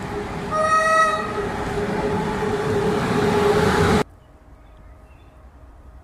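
Electric locomotive hauling a passenger train, running noise growing louder as it approaches, with one short single-tone horn blast about half a second in. The sound cuts off abruptly about four seconds in, leaving only a faint low background.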